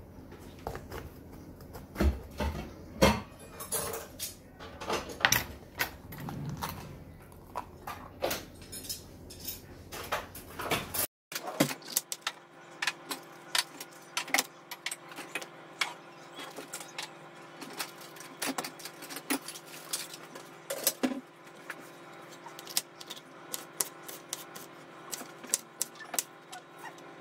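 Kitchen knife chopping an onion and then a red pepper on a plastic chopping board: irregular knocks of the blade striking the board. The sound cuts out briefly about eleven seconds in, and the taps after it come quicker and lighter.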